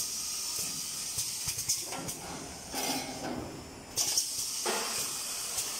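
Pneumatic butter cup filling and sealing machine running, with several short, sharp hisses of compressed air as its air cylinders exhaust. The strongest hiss comes about four seconds in, over a steady clatter of machinery.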